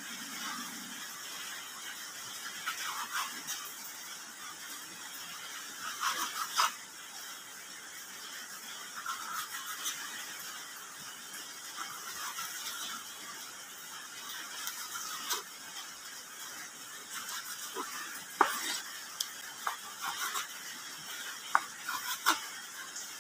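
Chef's knife cutting small mackerel tuna crosswise on a wooden cutting board: soft slicing through flesh and bone, with scattered sharp taps of the blade against the board, over a steady background hiss.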